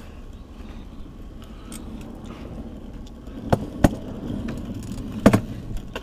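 Mechanic's creeper rolling on pavement under a motorhome, giving a low rumble, with three sharp knocks in the second half.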